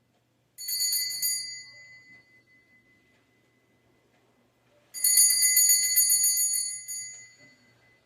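Altar bells (sanctus bells) rung twice, as at the consecration of the Mass. There is a short ring about half a second in that fades away, then a longer jangling shake of the small bells from about five seconds in.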